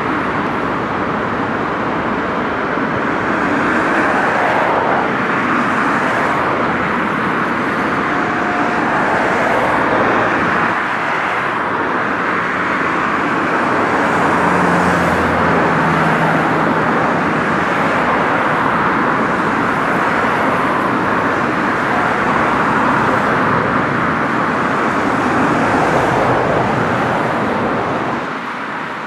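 Steady road traffic noise from cars passing on a road, the tyre noise swelling and easing as vehicles go by, and dropping off near the end.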